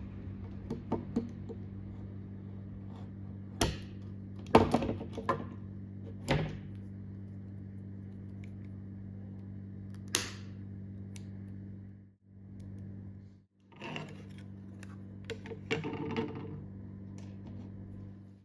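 Steady low electrical hum with scattered knocks and clacks of hard objects being handled, the loudest few about four to six seconds in and again about ten seconds in. The hum drops out briefly twice about twelve to thirteen and a half seconds in.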